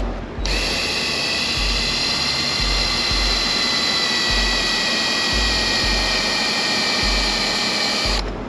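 Cordless drill running steadily on a rusted bolt, starting about half a second in and cutting off just before the end.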